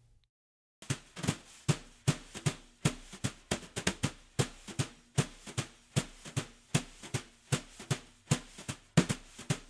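Outro music with a steady drum beat, about three hits a second over a low held note, starting about a second in after a brief silence.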